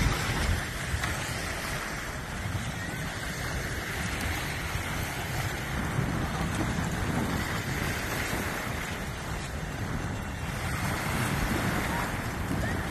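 Wind buffeting the microphone over small waves lapping at the water's edge, a steady rushing with gusty low rumble.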